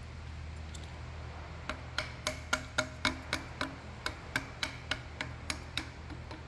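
Quick, evenly spaced metallic clicks, about three or four a second, each with a short ring, as the parts of a Cessna nose strut are worked by hand. The clicks start a little under two seconds in and fade toward the end, over a steady low hum.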